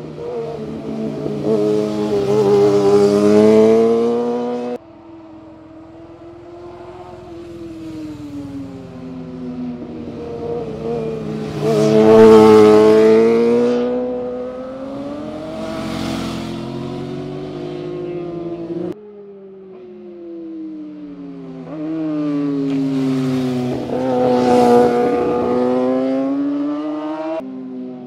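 Sport motorcycles, among them a Honda CBR1000RR, passing one after another through a canyon corner. Each engine note swells and fades, its pitch rising and falling with the throttle. Several separate passes follow each other with abrupt cuts between them.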